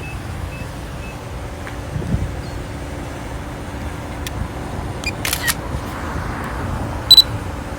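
Steady low background hum with a few faint clicks, then one short, loud, high-pitched electronic beep near the end.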